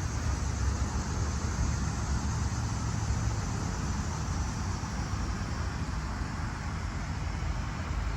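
Ford 7.3 L Power Stroke V8 turbo-diesel running at a steady idle, a constant low rumble with a wash of higher mechanical noise.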